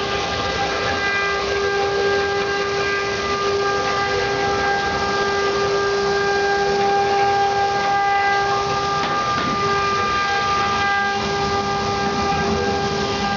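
CNC router spindle running at a steady speed, a constant whine over the hiss of the bit cutting into wood as it carves a relief.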